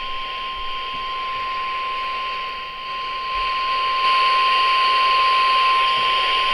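NOAA Weather Radio warning alarm tone: one long, steady beep over radio static hiss that grows louder about halfway through. The tone signals that a new warning message follows.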